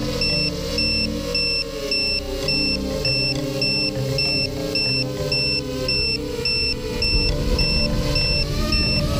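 Electronic background music with a high, evenly repeating beep about two and a half times a second over a steady low bass line.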